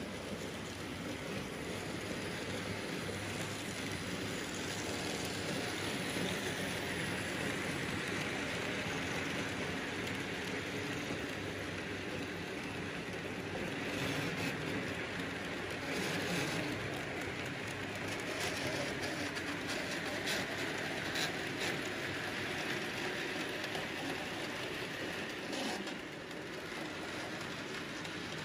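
Model trains running on a layout: a steady rolling rattle of small metal wheels and motors on metal track, with scattered sharp clicks in the middle stretch as wagons pass rail joints or points.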